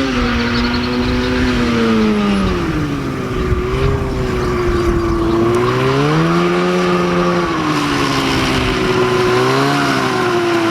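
Snowmobile two-stroke engine in a go-kart running under way, its pitch falling and rising several times as the throttle is eased off and opened again.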